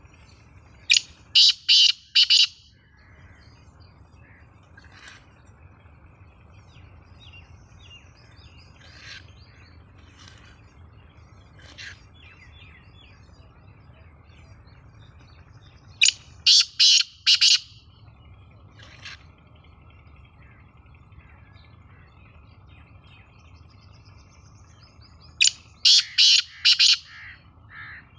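Caged francolin (teetar) giving its loud call three times, each a rapid run of about five harsh, high notes lasting around a second and a half. Fainter single call notes come in between.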